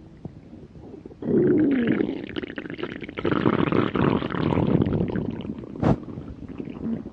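A person's stomach growling from hunger: a long rumble with wavering, sliding pitch that starts about a second in and lasts several seconds, followed by a single sharp click near the end.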